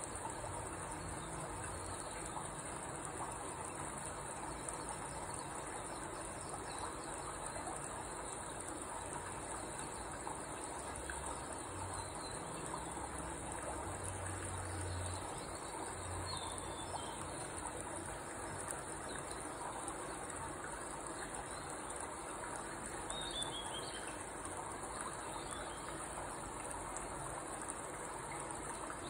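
Steady high-pitched chirring of an insect chorus, like crickets, with a few short falling bird chirps about halfway through and again about three-quarters through.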